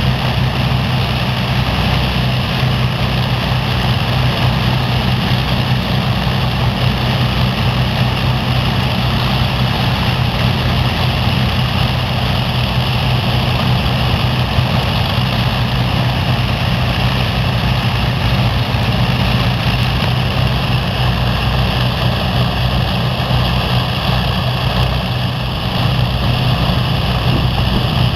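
Avro Lancaster bomber's four Merlin V12 piston engines running steadily with the propellers turning, a deep steady drone.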